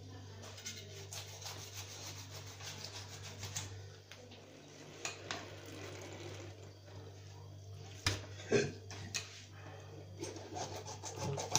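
Knife cutting and scraping through a carp's flesh and bones on a stone counter: a run of short rasping strokes and clicks, with a sharp knock about eight seconds in. A steady low hum runs underneath.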